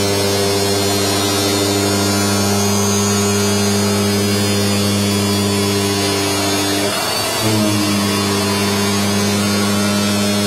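AOKE DCZ70 flatbed digital cutting machine running with a steady mechanical hum. About seven seconds in there is a brief dip and change in the hum.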